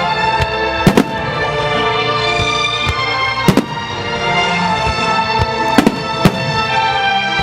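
Fireworks shells bursting in sharp bangs over music with long held notes played for a display set to music: a pair of bangs about a second in, another at about three and a half seconds, and several close together near six seconds.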